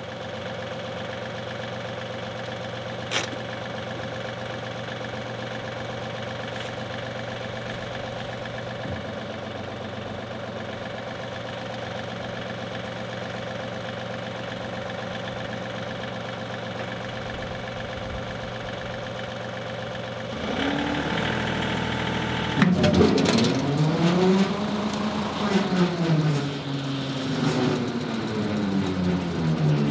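John Deere 2038R compact tractor's three-cylinder diesel idling steadily, then about twenty seconds in the PTO is engaged and drives the rotary cutter, the sound getting louder and its pitch rising and falling as it spins up and down. The slip clutch's spring bolts have been backed off so that it will slip, breaking a clutch that has locked up.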